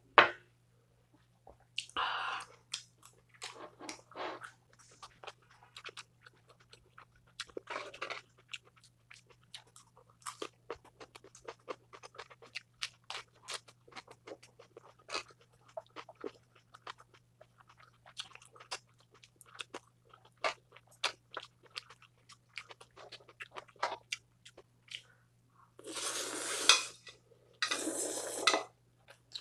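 Close-up mouth sounds of eating: chewing with many small wet clicks and crunches. Near the end come two long, loud slurps of instant noodles.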